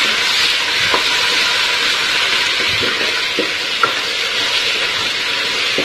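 Sliced onions and garlic paste sizzling in hot oil in an aluminium pressure cooker while being stirred with a wooden spoon. The spoon scrapes and knocks against the pan a few times.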